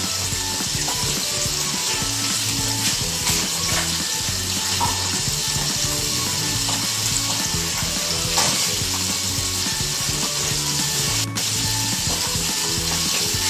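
A steady sizzling hiss of something frying in oil, with a low hum that switches on and off underneath.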